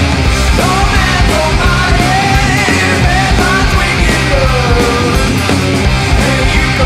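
Stoner/doom rock band recording: distorted guitars, bass and drums playing loud and steady, with a lead line wavering and sliding in pitch above them.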